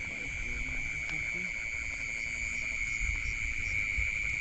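Chorus of crickets and other night insects: a steady high trill with a fainter, regularly pulsing chirp above it.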